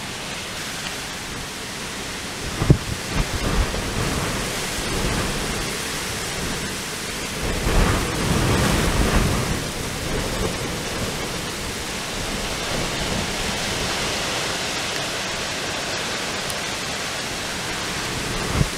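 Strong squall-line thunderstorm winds rushing through trees and a cornfield: a steady rushing noise, with gusts buffeting the microphone about three seconds in and again around eight seconds.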